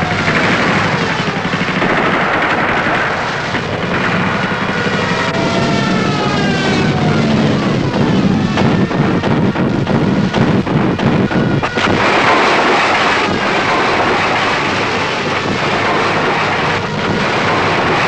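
Aircraft engines droning with whining pitches that glide up and down, like diving warplanes. From about eight to twelve seconds in, a rapid clatter of anti-aircraft gunfire cuts through; then the aircraft drone and whines carry on.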